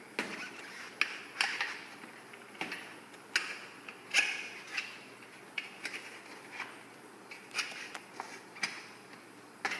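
Flathead screwdriver used as a tyre lever, prying a BMX tyre's bead off the rim: irregular clicks, scrapes and creaks of metal against the rim and rubber.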